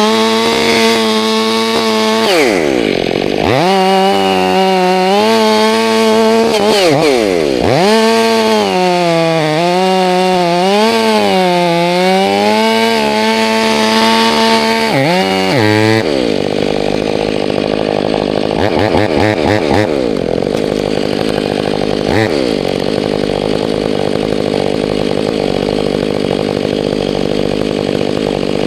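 Two-stroke chainsaw running at high revs through a cut; twice the revs drop steeply and pick straight back up. About halfway through, the sound changes abruptly to a rougher, noisier engine sound with less clear pitch.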